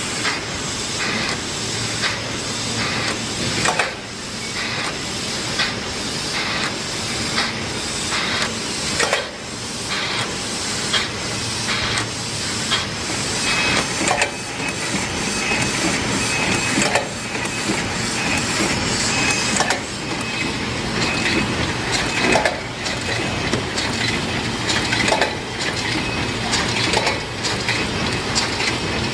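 Corrugated box-making machinery running: sheet feeder and conveyor giving a steady mechanical clatter with frequent irregular knocks and a hiss. A thin high tone sounds for a few seconds around the middle.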